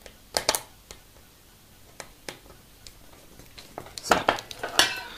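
Light clicks and clatter of small model-kit parts and screws being handled and fitted, with a cluster of knocks about half a second in, a few single ticks, and a denser run of clatter near the end.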